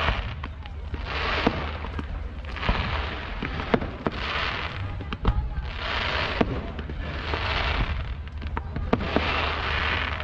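Fireworks display: hissing bursts that swell up about once every second or so, with sharp bangs scattered among them.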